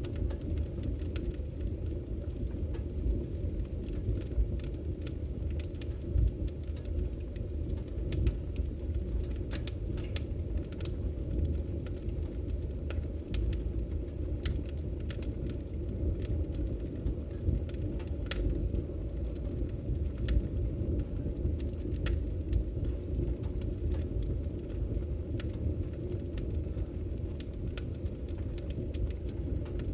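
Fireplace fire burning with a steady low roar and frequent sharp pops and crackles scattered irregularly throughout.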